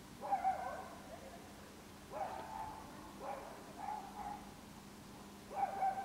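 An animal calling in five short bursts, spread over a few seconds, the first and last the loudest, over a faint steady hum.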